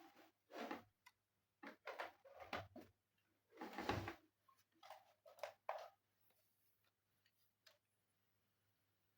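Faint clicks, taps and short rustles of computer parts and tools being handled inside an all-in-one PC, the loudest a brief scrape about four seconds in. The handling stops after about six seconds, leaving a faint steady low hum and one small tick.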